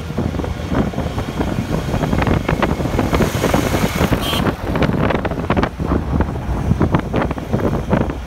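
Road noise and wind buffeting the microphone from a moving vehicle with the window open: a steady low rumble with gusty thumps, and a brighter rushing hiss around the middle as a small truck passes close by.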